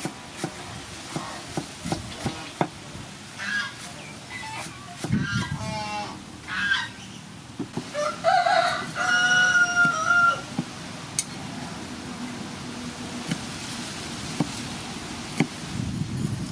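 A cleaver chopping green onions and chilies on a wooden chopping block, a run of short, uneven knocks. Chickens cluck in the background, and about halfway through a rooster crows once, a long held call and the loudest sound.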